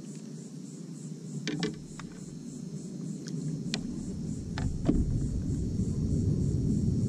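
Fishing reel being cranked to bring in a small hooked redfish: a low rumble with several sharp clicks and knocks, growing louder about five seconds in.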